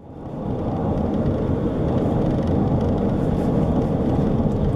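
Steady rumble of a moving vehicle, fading in over the first second.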